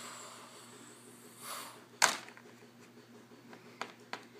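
Plastic Lego pieces being handled on a Lego baseplate: one sharp click about two seconds in and a few faint taps near the end, over a faint steady hum.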